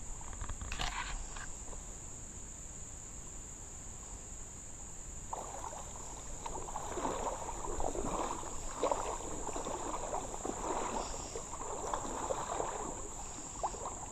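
Steady high chirring of insects such as crickets. From about five seconds in, irregular water sloshing and splashing close by joins it and becomes the loudest sound.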